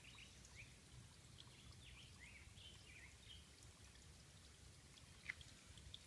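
Near silence: quiet outdoor ambience with a few faint, short high chirps scattered through the first half and one soft click about five seconds in.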